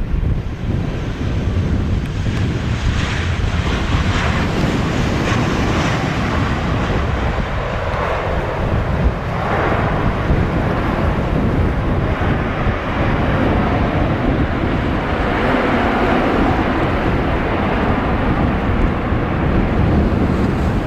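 Heavy wind buffeting on the microphone over the engine noise of a Delta Boeing 737 landing and rolling out on the runway. The jet noise swells a couple of seconds in and again about two-thirds of the way through.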